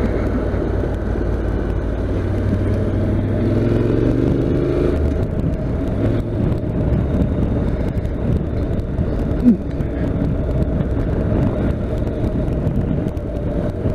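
Honda NC750X motorcycle's parallel-twin engine running while riding, under steady road noise. Its pitch rises about four seconds in as the bike accelerates, then it settles to a steady cruise.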